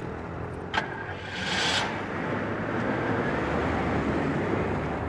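City street traffic: a steady rumble of passing cars, with a single click under a second in and a short hiss about a second and a half in.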